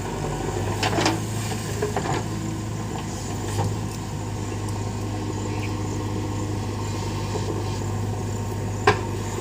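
Heavy diesel machinery running steadily, with a few short, sharp knocks: one about a second in, another shortly after, and one near the end.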